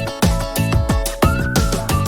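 Background music with a steady electronic beat and a gliding melody line.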